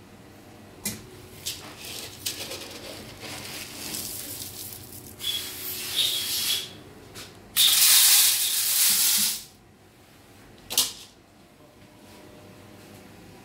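Sunflower seeds poured into the stainless steel hopper of a screw oil press, a rattling, rushing hiss in several pours, the loudest about eight seconds in. A few short sharp knocks come between the pours.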